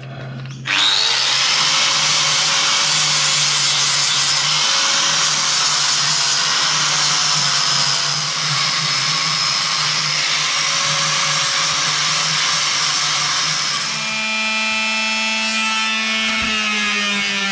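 Angle grinder fitted with a coarse flap disc, starting suddenly about a second in and grinding down Devcon epoxy putty built up on a heat exchanger flange, with a whine that wavers in pitch as the disc bites. About fourteen seconds in it gives way to a small electric finishing sander running with a steady hum.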